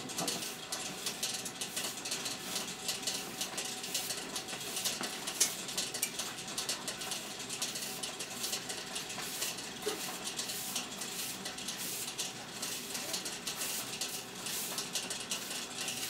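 Korean rice-popping machine running: a steady crackling hiss with dense rapid clicking and rattling from the turning drum as the grain is heated, and one sharper click about five seconds in.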